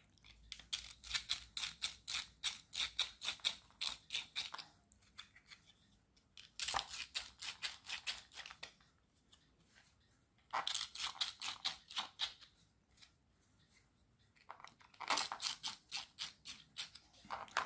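Craft knife blade scraping and shaving the edges of holes in a 3D-printed plastic plate, trimming them: four spells of quick scraping strokes with short pauses between.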